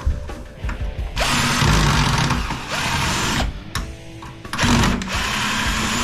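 Handheld power drill/driver running in two long bursts, the first about a second in and the second just before the last second, driving out the fasteners that hold a microwave oven's transformer. Light handling clicks come before the first burst.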